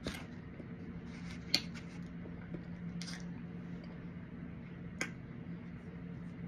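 Eating ice cream with a spoon: four small sharp clicks and mouth sounds spaced a second or two apart, over a steady low hum.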